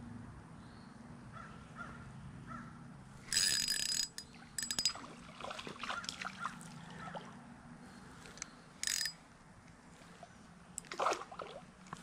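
Spinning reel and line during a cast and retrieve with ultralight tackle: several short metallic whirring bursts, the loudest about three seconds in, and others around five and nine seconds.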